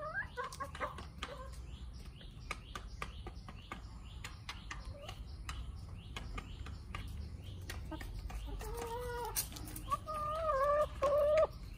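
Backyard chickens pecking at feed: many short taps of beaks. Over the taps come drawn-out, wavering hen calls, briefly at the start and again for about three seconds near the end, where they are loudest.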